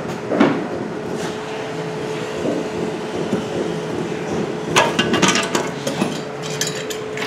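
Scattered knocks and light clinks from a worker moving about and handling tools and parts, bunched together about five seconds in, over a steady background hum.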